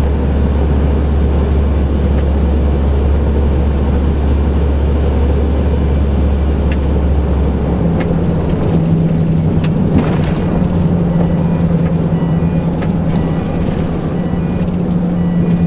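Renault Magnum truck running, heard from inside the cab, its steady low engine note changing pitch about halfway through, with a few sharp clicks.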